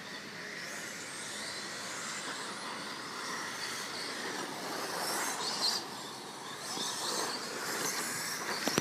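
Electric 1/10-scale short course RC trucks racing on dirt: their motors whine, rising and falling with throttle, over the steady hiss of tyres on the dirt. A short sharp click near the end.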